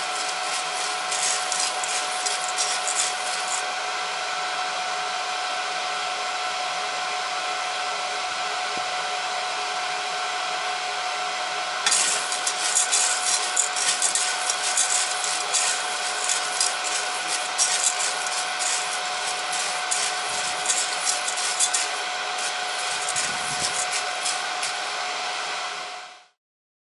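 Freshly roasted coffee beans rustling and rattling as they are stirred in the Cormorant CR600's cooling tray, over the steady whirr and whine of the roaster's fan. The rustling comes in spells, at the start and again from about halfway until a few seconds before the end, and all sound stops abruptly near the end.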